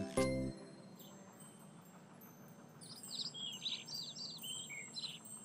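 Small birds chirping: a quick run of short, high chirps starts about three seconds in and lasts about two seconds over a faint background. The tail of a music cue ends about half a second in.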